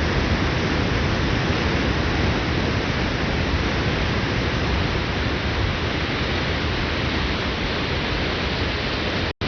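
Water pouring through a dam, a steady full-range rush of falling water with no change in strength, broken by a split-second dropout near the end.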